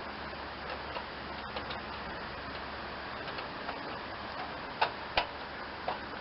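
Scattered, irregular metallic clicks and clinks of hand tools working on the tractor's engine bolts, with two sharp clicks about five seconds in, over a steady background hiss.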